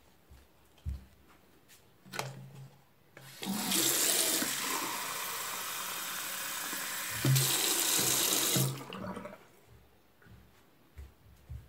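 Bathroom sink tap running into a plastic measuring jug, turned on about three seconds in and shut off about five seconds later, with a steady rush that gets louder partway through. A few light knocks of the jug being handled come before and after.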